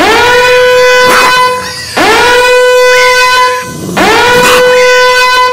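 Three loud horn blasts, about two seconds apart. Each slides up to a steady high note, holds it for about a second and a half, then fades.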